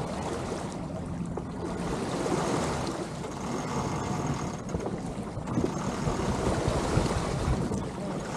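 Water swishing and lapping along a sailing catamaran's hulls and wake as it moves slowly in light air, with a low rumble of light wind on the microphone.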